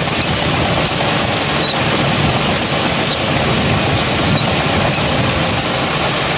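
Old truck driving, heard as a loud, steady rushing noise with no clear tone.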